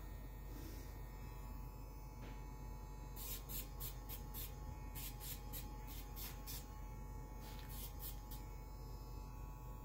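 Battery pet nail grinder running with a steady electric hum. From about three seconds in there are runs of short grinding sounds, several a second, as the spinning bit files a puppy's claws.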